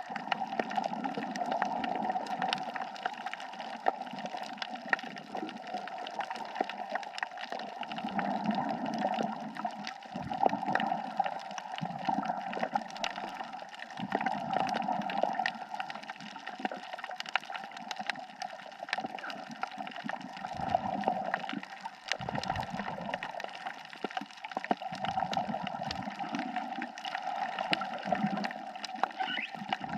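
Underwater sound of a scuba diver breathing through a regulator: a hissing draw that swells and fades, and a low gurgle of exhaled bubbles every few seconds. Under it runs a steady crackle of small clicks.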